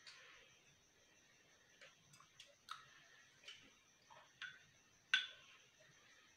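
Metal spoon clicking against a small glass bowl while scooping, a series of sharp clicks with the loudest about five seconds in, after faint eating sounds at the start.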